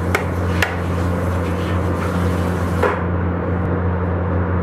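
A few sharp knocks of kitchen utensils, mostly in the first second and one more near three seconds in, over a steady low hum.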